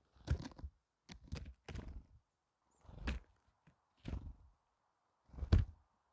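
Great tits' wings fluttering and feet thumping as they land, feed and take off right beside the microphone: about six irregular soft thumps, the loudest about five and a half seconds in.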